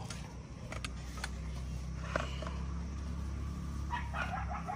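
Steady low engine hum, with a few faint clicks over it, that cuts off suddenly near the end.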